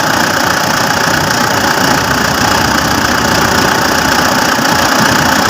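Mitsubishi Pajero Fieldmaster's diesel engine idling steadily while hot.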